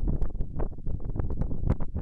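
Wind buffeting the microphone: a loud, uneven rumble with many short crackles.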